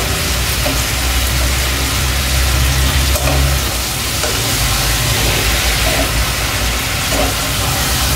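A flat spatula stirring and scraping eggplant, potato and fish head frying in a kadai, the food sizzling over a steady low rumble.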